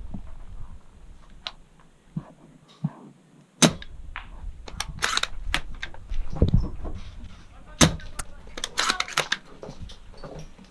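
Airsoft guns firing: single sharp cracks, the loudest about three and a half and about eight seconds in, with smaller clicks and pops between.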